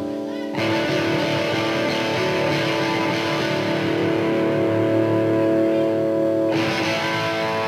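Electric guitar chords played live through an amplifier and left to ring, a new chord struck about half a second in and another at about six and a half seconds, with no drums or vocals.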